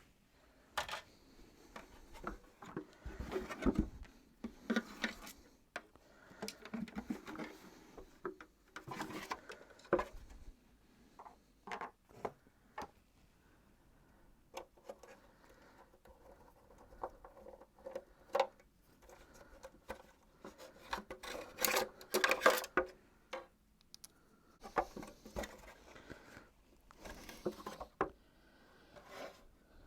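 Miele S234i vacuum cleaner parts being handled and worked apart: scattered clicks, knocks and scraping rubs, busiest about two thirds of the way in.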